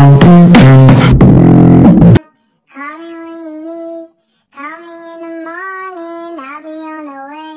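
Loud backing music with a beat plays for about two seconds and cuts off suddenly. After a short gap, a lone high voice sings two slow phrases of held notes, stepping and sliding between pitches.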